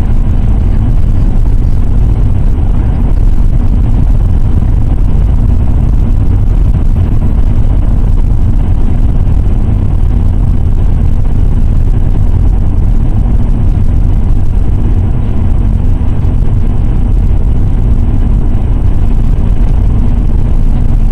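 Car cruising at highway speed, heard from inside the cabin: a steady, loud low rumble of tyres on asphalt and engine.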